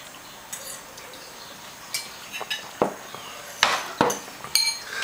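Forks and cutlery tapping and clinking against dinner plates, a handful of light, scattered clinks, some with a short ring.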